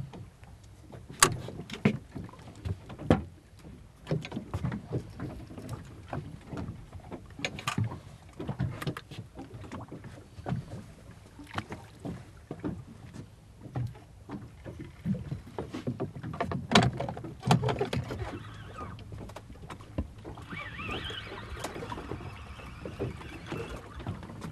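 Irregular knocks and clicks of rod, reel and deck gear being handled on a fishing boat at sea. For a few seconds near the end there is a steadier rasping noise.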